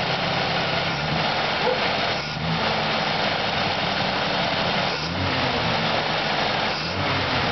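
1939 Dodge D11's 218 cubic-inch inline flathead six running at idle, its throttle linkage worked by hand at the carburetor. The engine note briefly dips and shifts three times.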